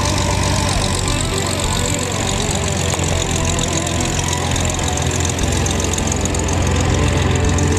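Cessna 172's piston engine and propeller running at low taxiing power as the plane rolls past, steady and growing a little louder near the end as it comes closer.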